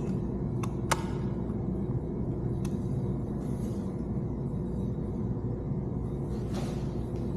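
Steady low mechanical rumble, with a few light clicks of small screws and parts being handled about one and three seconds in.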